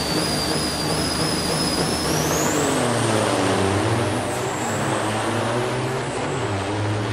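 Two diesel semi-truck engines revving hard side by side at a drag-race start line, their pitch dipping and climbing again partway through, with a high whine climbing about two seconds in.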